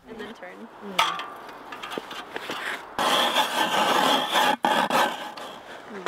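Hand-cranked ice auger grinding and scraping down through pond ice, starting suddenly about halfway through and running on steadily. Before it, soft voices and a single knock.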